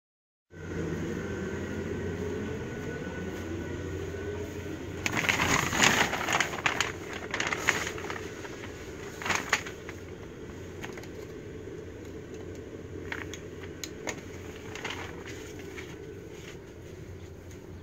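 A steady low mechanical drone, with bursts of rustling and crackling about five to ten seconds in and a few more crackles later.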